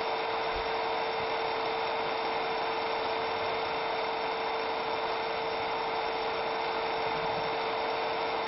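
100-watt CO2 laser engraver running a raster engraving job on Cermark-coated brass: a steady mechanical whir and hiss with one constant mid-pitched whine.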